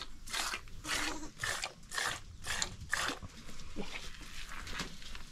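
Goat being milked by hand into a metal pail: rhythmic hissing squirts of milk, about two a second, that stop about three seconds in.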